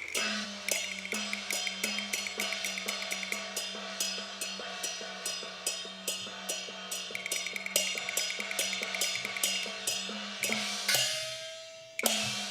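Cantonese opera band playing an instrumental passage: evenly spaced percussion strokes, about two a second, over a steady low note, with a louder cymbal-like crash about eleven seconds in.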